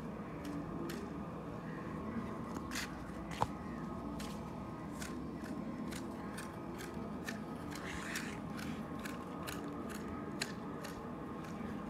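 Long-handled manual hedge shears snipping through the leafy stems of a clipped creeper bush: repeated sharp snips, roughly one or two a second, at an uneven pace.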